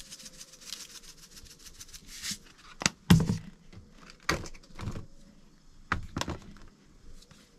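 Salt shaken out over a raw salmon fillet in a metal sheet pan: a fast, fine pattering of grains for about two seconds. Then a series of sharp knocks and thunks, the loudest a little after three seconds in, as the seasoning containers are handled and set down on the counter.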